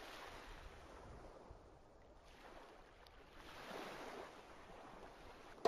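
Faint background noise from the lecture recording, a soft hiss with no speech that swells and fades twice.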